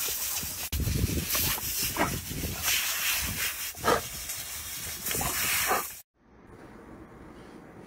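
Garden hose nozzle spraying a hissing jet of water while a dog snaps and bites at it, with repeated bursts of spattering water. The spray cuts off suddenly about six seconds in, leaving a faint steady background.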